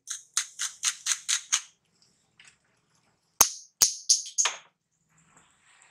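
Spiced oil sizzling and spattering in a pan as black salt is sprinkled in: a quick run of short crackles, then two sharp clicks and a few more crackles past the middle.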